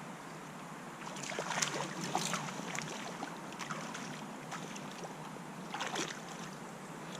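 Stream water running steadily, with short splashes about a second in and again near six seconds.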